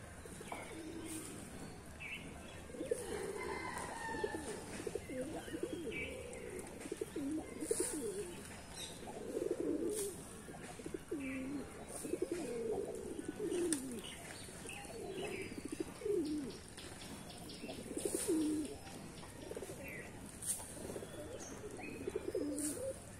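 A flock of domestic pigeons cooing over and over, low warbling calls overlapping one another, with a few short sharp clicks now and then.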